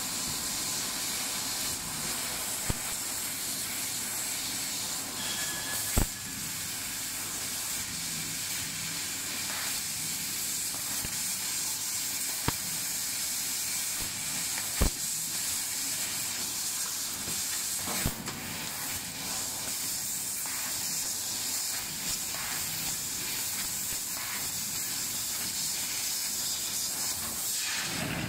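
1000 W fiber laser cutting machine cutting thin sheet metal: a steady high hiss of the assist gas jetting from the cutting head. A few sharp clicks are heard along the way.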